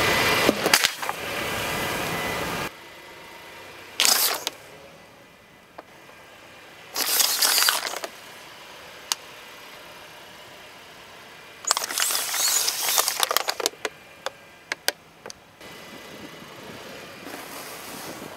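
A car tyre crushing plastic bottles on asphalt, in several separate bursts of crackling and popping a few seconds apart, the longest about two seconds, with sharp cracks among them.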